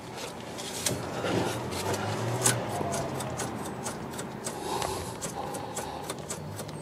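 Faint rubbing and scraping with a few light knocks as a hand pushes up on a Mitsubishi Outlander PHEV's rear torque reaction arm, whose rubber bush has failed.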